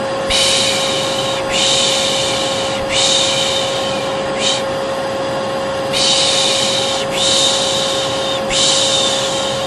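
Vacuum cleaner running with a steady drone and a constant whine, while a voice shushes "shhh" over it again and again, each hiss lasting about a second with short gaps. This is the Turkish "piş piş" lulling shush paired with vacuum noise as a soothing sound.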